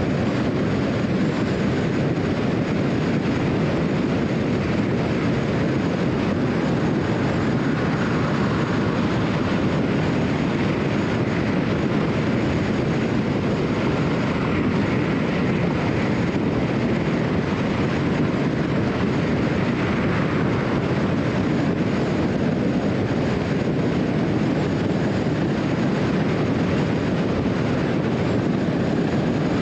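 Steady road noise of a car cruising at highway speed: tyres rolling on the pavement with a low rumble.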